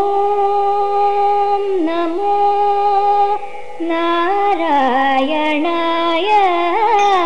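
Carnatic vocal music: a singer holds long, steady notes, then about halfway through moves into sliding, ornamented phrases, over a steady drone.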